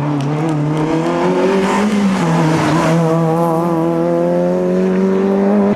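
Rally car engine at high revs, accelerating with its pitch climbing steadily and a short break at a gear change about two seconds in. It cuts off suddenly near the end.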